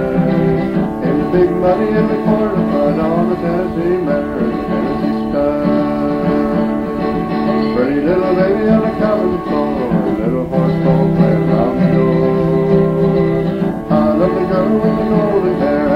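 Country music with guitar: a recorded song playing steadily, with bending melody lines over a steady accompaniment.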